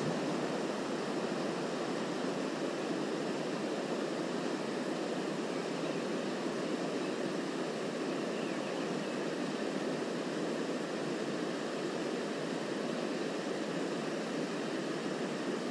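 Steady rushing of the River Tay flowing fast past the bank.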